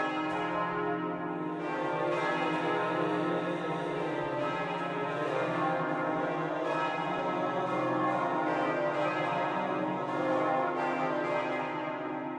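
Many bells ringing together: a loud, dense, sustained wash of overlapping bell tones.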